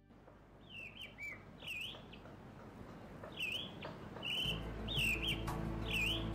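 A bird calling: several short chirps, each a quick dip and rise in pitch, repeated every second or so. Soft music with held low notes comes in a little over four seconds in.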